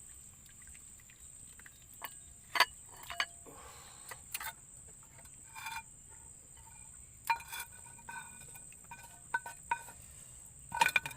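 Scattered sharp clinks and knocks of metal camp cookware and utensils, some with a brief ring, bunched most tightly near the end. Behind them a steady high-pitched insect drone.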